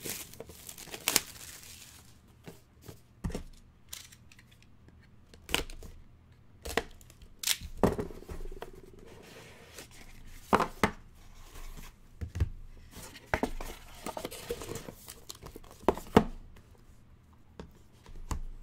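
Plastic shrink-wrap on a sealed trading-card box being torn open, a rasping tear over the first two seconds. After it come scattered sharp clicks and short rustles as the box is opened and the cards inside are handled.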